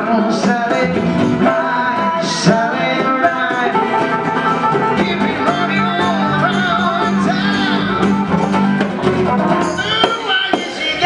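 Live band music: acoustic and electric guitars, a hand drum and harmonica, with singing. Near the end the playing gives way to sharper percussive hits.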